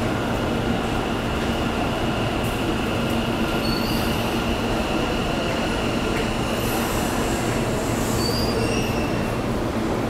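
Kintetsu train moving along the platform: a steady rumble of wheels on rail with a thin high wheel squeal held through most of it, and short higher squeaks about four and eight seconds in.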